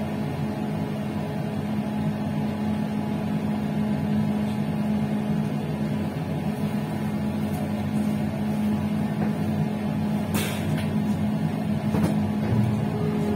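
Passenger train running along the track: a steady rumble with a constant hum, and a short sharp noise about ten seconds in.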